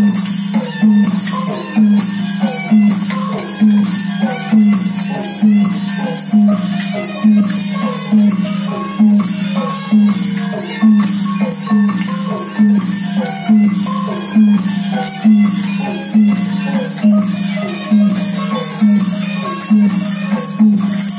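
Traditional Burmese ensemble music accompanying a marionette horse dance, driven by a steady, evenly repeating low drumbeat with pitched percussion and melody over it.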